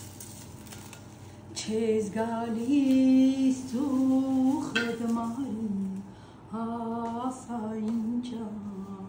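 A woman singing an Armenian song in long, held notes with vibrato. She starts about a second and a half in and breaks briefly around six seconds.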